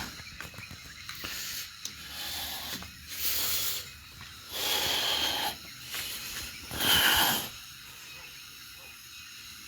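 A person's breathy, hissing exhalations: three bursts about two seconds apart, over a faint steady background hiss.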